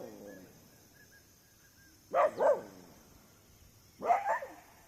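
A dog barking: a quick double bark about two seconds in and another bark about four seconds in.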